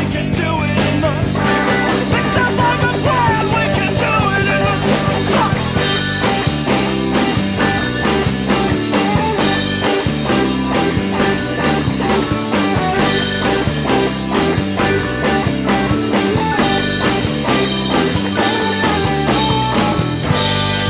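Rock band playing live: drums, bass guitar and a bowed string instrument, in an instrumental stretch of the song with a wavering melodic line in the first few seconds.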